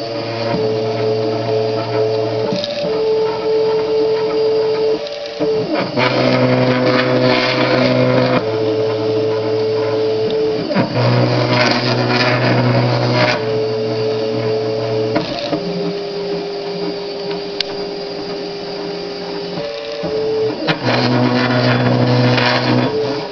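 Stepper motors of a small home-built CNC machine driving a marker pen along its lines: a steady whine that jumps to a new pitch every few seconds as each new line segment begins, with brief dips between moves.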